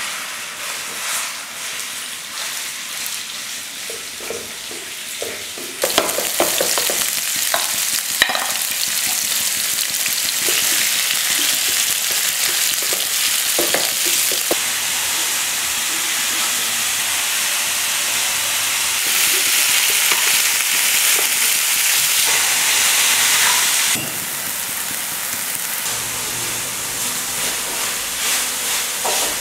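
Minced meat sizzling as it fries in hot oil in a frying pan, with a wooden spatula scraping and stirring it. The sizzle grows louder about six seconds in and eases back down near the end.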